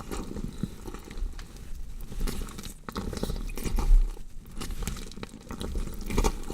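Body-horror foley effect of a body being dissected: dense wet crunching and tearing with rapid small crackles over a low rumble, and a heavy low thump about four seconds in.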